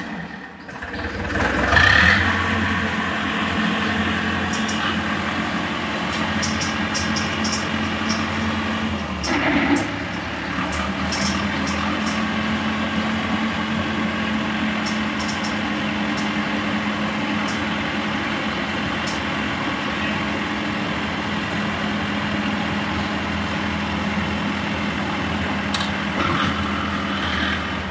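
Farm tractor's diesel engine running steadily while it drives the hydraulic lift that tips its loaded soil trailer. The engine note rises slightly about ten seconds in.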